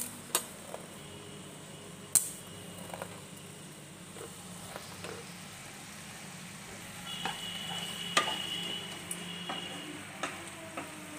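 Chopped onions frying in mustard oil in a kadai, sizzling steadily as they brown. A couple of sharp utensil clicks against the pan come in the first two seconds, and a wooden spatula scrapes and stirs the onions later on.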